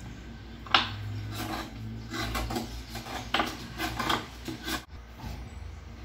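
Kitchen knife chopping and scraping a block of rapadura (hard brown cane sugar) on a plastic cutting board: a string of irregular knocks and scrapes, the sharpest about three-quarters of a second in, stopping about five seconds in.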